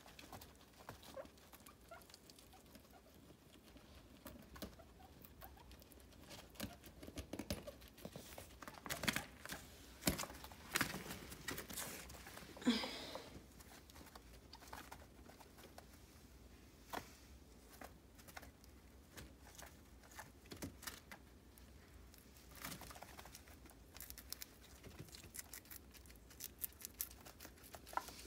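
Guinea pigs moving about on a paper pad and chewing parsley stems: faint scattered clicks, patters and rustles, with a cluster of louder ones around the middle.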